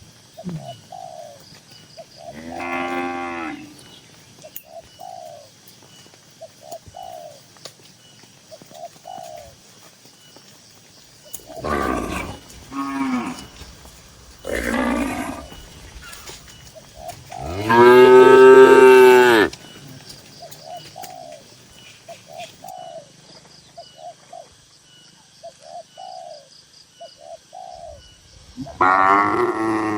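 Cattle mooing, about six separate moos from more than one animal. The loudest and longest is a deep moo of nearly two seconds about two-thirds of the way through, and another begins near the end.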